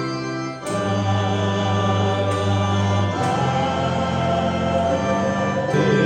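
Gospel music: an organ holding sustained chords that change twice, with a choir singing over it.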